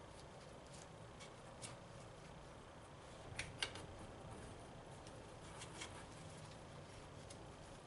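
Quiet background hiss with a few scattered light clicks and taps, two sharper clicks close together about three and a half seconds in.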